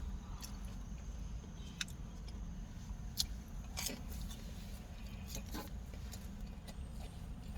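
Mouth sounds of eating: chewing with a few sharp wet smacks and clicks, over a steady low rumble inside a car.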